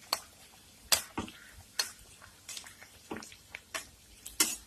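Metal spoon clinking and scraping against a kadhai while hot oil is spooned over frying maida katori cups: a string of irregular sharp clicks, about two a second, over a faint frying hiss.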